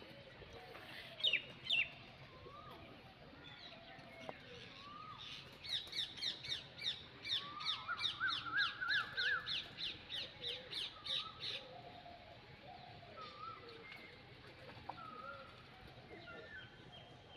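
Mixed birds calling and chirping: two sharp calls about a second in, then a fast run of repeated falling notes for several seconds mid-way, with scattered shorter calls throughout.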